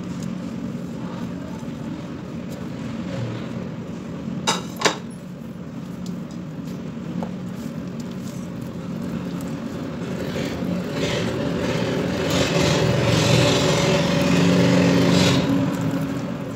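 Silicone spatula stirring a thick mix of fried chana dal grains and sugar syrup in a steel pot, with two sharp clinks about four and a half seconds in as it knocks the dish or pot. From about ten seconds in there is louder scraping against the pot's side, over a steady low hum.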